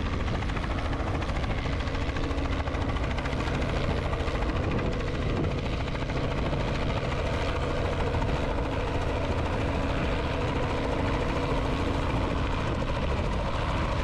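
Robinson helicopter on a normal approach, coming in to a hover over the landing spot, its main rotor beating steadily over the running engine.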